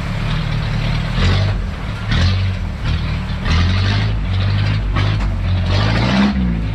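An off-road 4x4's engine running under load on a trail. Its pitch rises and falls repeatedly as the throttle is worked, with rushes of noise about once a second and a rising rev near the end.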